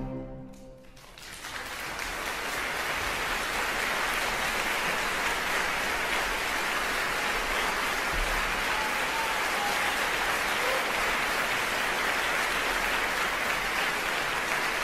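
The last chord of a violin, cello and piano trio dies away, and about a second in an audience starts applauding; the applause then holds steady.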